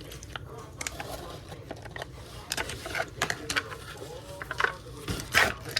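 Irregular clicks and short scrapes of kitchen utensils and dishes being handled while a layered cake is frosted.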